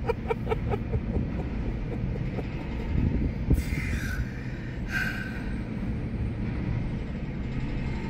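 Steady low rumble from the steel truss bridge close by, which is noisy, swelling about three seconds in, with two short hissing passes soon after. A woman's chuckle trails off in the first second.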